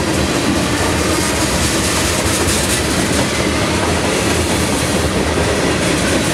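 Freight train's covered hopper and tank cars rolling past close by: a steady, unbroken noise of steel wheels running on the rails.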